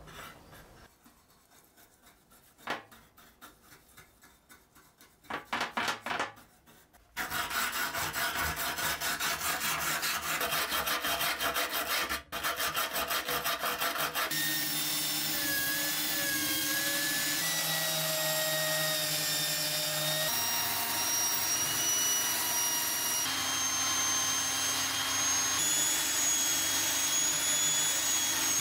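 A bristle brush dabbing paint stripper quietly, then fast scrubbing with a wire brush on a paint-stripped sheet-steel toy part. About halfway through it gives way to a motor-driven brass wire wheel spinning steadily against the steel part, with a high whine.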